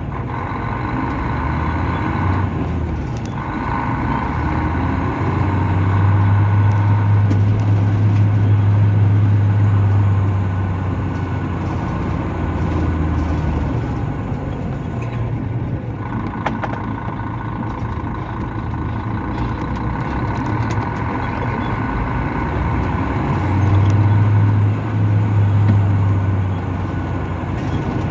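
Mercedes-Benz O500-RS coach's 354 hp diesel engine, heard from inside the moving bus, running with a deep drone. The drone swells for several seconds about a fifth of the way in and again near the end, with a brief dip in the second swell.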